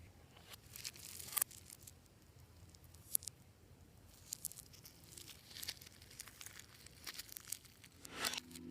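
Faint, intermittent crinkling and crackling with a few sharp clicks, the sound of slime ingredients and add-ins being handled and mixed by hand.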